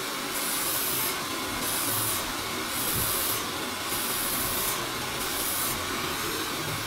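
Handheld hair dryer blowing steadily, with a brighter hiss coming and going about once a second.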